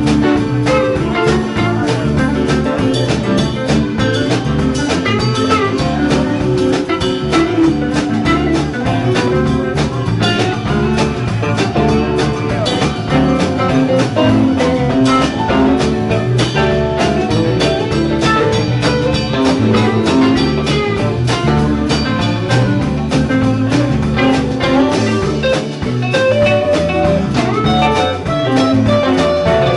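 Live rock band playing: electric guitars over electric bass and a drum kit.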